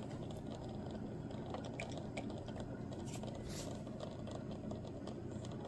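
Quiet room tone with a steady low hum and a few faint, scattered clicks, as of a small diecast model car being handled.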